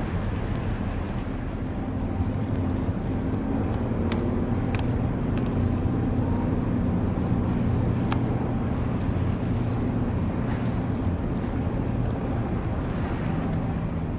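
Coast Guard patrol vessel's engines droning steadily at low pitch as the ship passes close, over a steady wash of water, with a few faint ticks.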